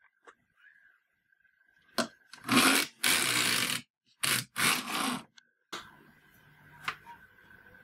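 Carriage of a Severyanka-type hand knitting machine pushed back and forth across the steel needle bed, knitting rows with yarn: a loud scraping rattle with each pass, in a few strokes between about two and five seconds in. There are short clicks before and after. The needles were recently de-rusted and oiled and are being worked in.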